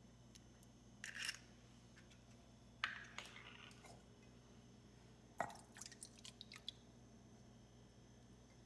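Quiet kitchen handling: a few light knocks and clicks, about a second in, around three seconds and a cluster past the middle, as the broken eggshell is set aside and a glass measuring cup of milk is picked up over a stainless steel bowl.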